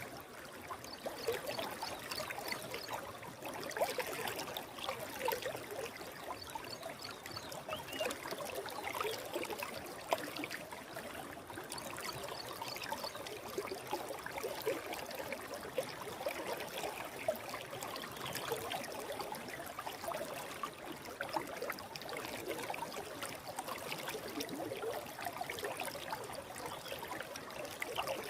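Shallow stream flowing steadily, with close trickling and babbling over stones.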